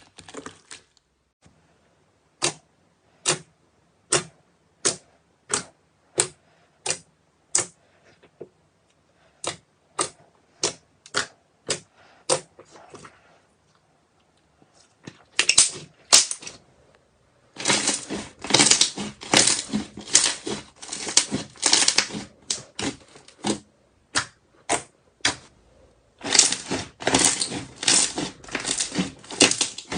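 Slime being handled, making a series of sharp clicks: single ones about a second apart at first, then dense clustered runs of clicks in the second half.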